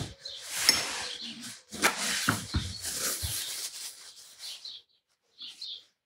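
Small birds chirping, with rustling and a few light knocks for the first four seconds or so as the painting materials are handled.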